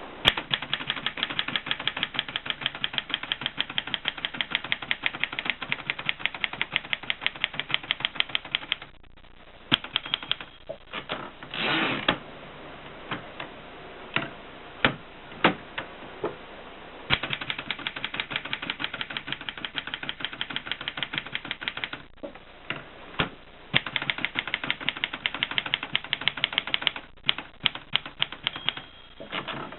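Erika M manual typewriter being typed on: fast runs of key strikes lasting several seconds, broken by pauses with single strikes and a short sliding rattle about twelve seconds in.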